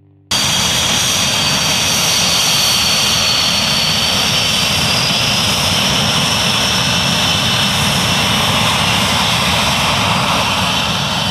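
Panavia Tornado jet's twin RB199 turbofan engines running loud on the runway: a steady jet roar with a high whine that slowly wavers in pitch. It cuts in abruptly just after the start.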